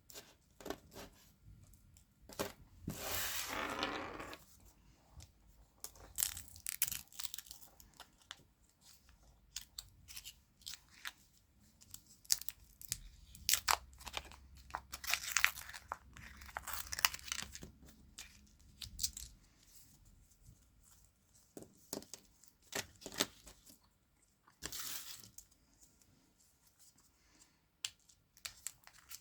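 Candy wrappers being torn open and crinkled by hand: a longer rip about three seconds in, more rips later, and scattered crackles and snaps of the packaging throughout.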